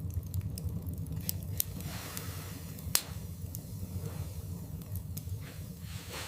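Wood fire burning in a fireplace. The flames give a steady low rumble, with scattered crackles and sharp pops from the burning logs; the loudest pop comes about three seconds in.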